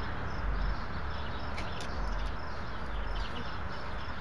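Outdoor background: wind rumbling on the microphone, with faint small birds chirping and a couple of light clicks from handling a plastic RC crawler truck.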